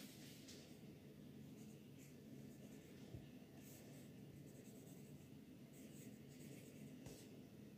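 Faint scratching of a felt-tip marker drawing on paper, in short strokes.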